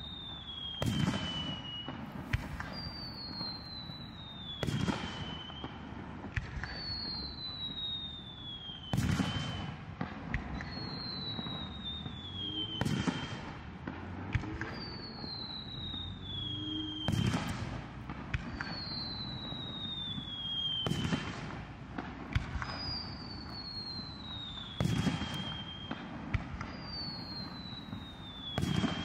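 Aerial fireworks shells fired one after another, with a bang about every four seconds. Between the bangs comes a whistle that falls in pitch, much the same each time.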